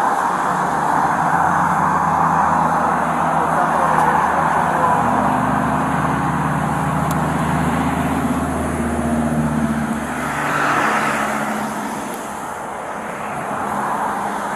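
Road traffic going by: a steady rush of tyre noise, with a vehicle engine's low hum for several seconds in the middle and a car passing close about ten seconds in.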